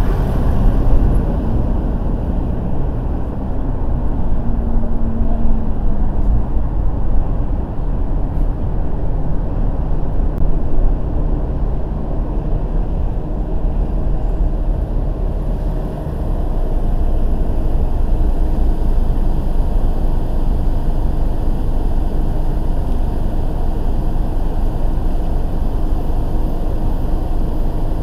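Steady low rumble of a car driving through city traffic: engine, tyre and road noise, with a brief faint hum about five seconds in and a short dip in loudness about halfway through.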